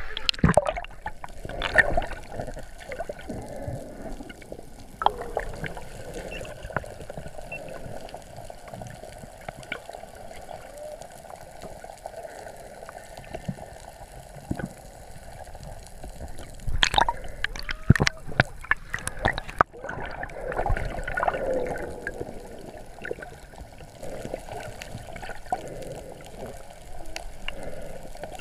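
Underwater sound picked up by a snorkeler's camera: a steady muffled water wash, broken by scattered knocks, with a cluster of them about 17 to 19 seconds in.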